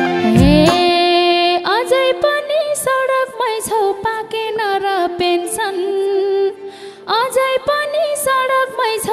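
Nepali dohori folk song performed live: a woman sings a sliding, ornamented melodic line over a traditional band with a hand drum, with a brief break about seven seconds in.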